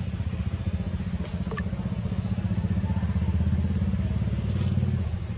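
A motor engine running with a rapid low throb that grows louder and then drops away about five seconds in.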